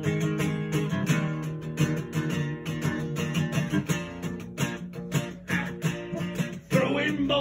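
Strummed guitar playing an instrumental break in a song, with a singing voice coming in near the end.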